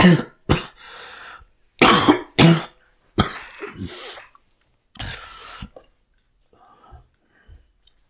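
A man coughing hard: a string of six harsh coughs in about five seconds, then faint, short gasping breaths near the end. It is an asthma coughing fit.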